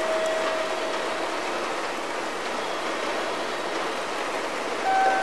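Railway station platform background noise: a steady, even rushing, with a faint steady tone near the start and another pair of tones starting just before the end.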